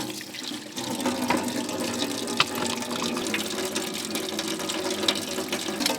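Water running and splashing steadily: a dense rush of drops and spatters, fading near the end.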